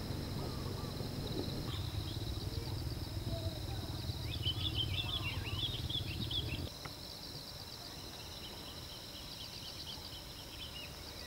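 Outdoor ambience of insects chirping in a steady, rapid pulse, with birds calling, most busily around the middle. A low rumble sits underneath for the first two-thirds and stops suddenly.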